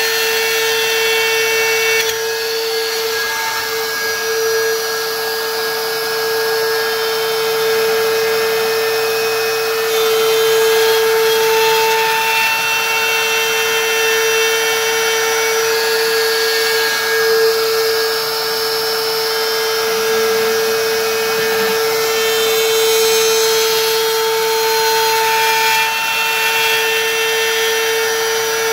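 DeWalt plunge router running at full speed, its bit cutting a groove in a wooden panel: a loud, steady high whine that wavers slightly as the bit is pushed through the wood.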